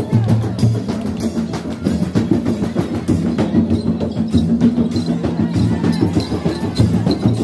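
Rebana frame drums beaten in a steady, repeating rhythm, the accompaniment to the dancing horse, with the crowd's noise underneath.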